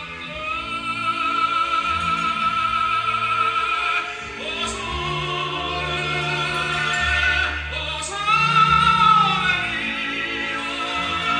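Operatic singing with strong vibrato over an orchestra, a recording played back through a Pioneer SR-303 reverb unit and HPM-1500 speakers.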